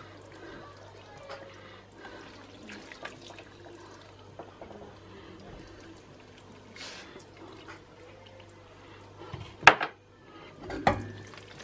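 Hot water poured from a plastic jug into a wide pan of cabbage rolls, a soft, steady trickle and splash. A single sharp knock sounds near the end.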